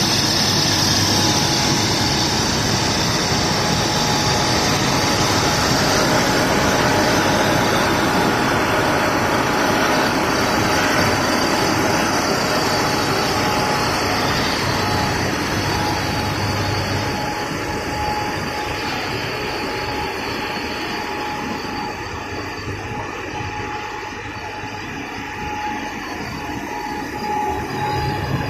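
Pet food extrusion line running: steady mechanical noise from the extruder and conveyors, with a thin steady whine through it, easing a little in the latter part.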